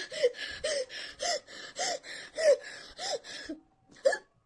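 A woman panting hard with short voiced gasps, about eight in a quick, even rhythm, from the burn of an extremely hot chili chip.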